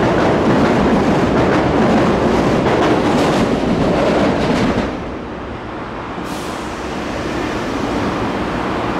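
Midosuji Line subway train running alongside the platform. Its loud rail and running noise drops off sharply about five seconds in, and a quieter hiss follows.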